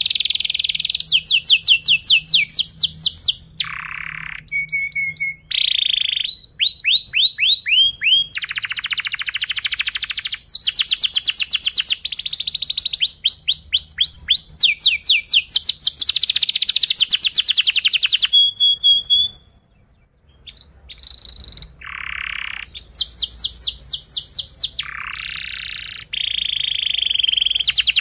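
Domestic canary singing a long song of tight, rapid rolling trills and chirping notes, one phrase straight after another, with a brief pause about two-thirds of the way through.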